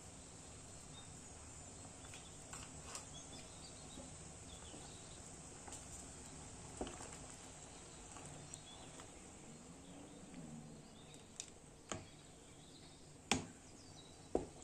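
Plum jam simmering in a stainless steel pot with faint bubbling, while a wooden spoon stirs it and knocks against the pot's side a few times, the loudest knock near the end.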